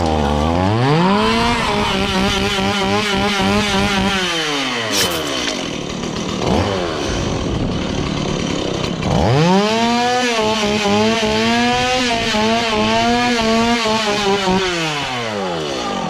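Chainsaw revving up to full speed, held there with a wavering pitch for a few seconds, then winding down. It happens twice, with a short lull between.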